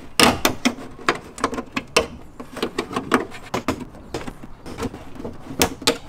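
A BMW M2's plastic trunk sill trim cover being wiggled out of the rubber seal channels that hold it: an irregular run of sharp plastic clicks and knocks.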